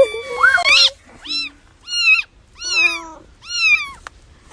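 Cat meowing repeatedly and loudly: a call trails off about a second in, then four short meows follow, each rising and falling in pitch.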